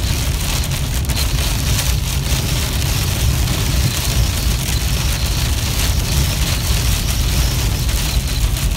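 Wind-blown rain hitting a car's windshield at highway speed, heard from inside the cabin over a steady low rumble of road and wind noise.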